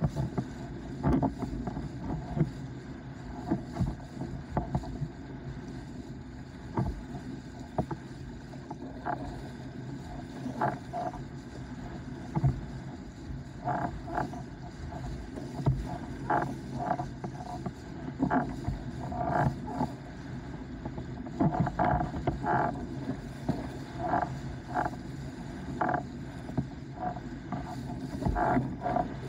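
Starboard 104-litre S-Type windsurf board planing: the hull knocks and slaps irregularly on chop over a steady rush of water and wind.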